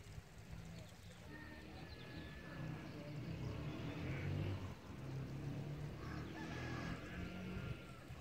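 Faint outdoor ambience: a low, uneven rumble, with a few brief high whistling calls about a second in and again near the end.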